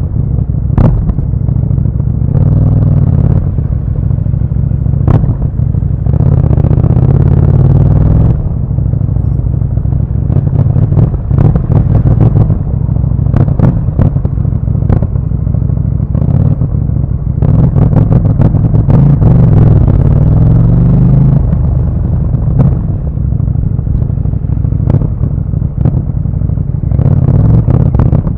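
Motorcycle engine running and revving as it is ridden, with heavy wind rumble on the camera microphone and scattered sharp clicks.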